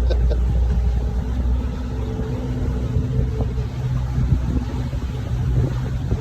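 Small tour boat's motor running steadily under way: a constant low hum with rough rushing noise over it.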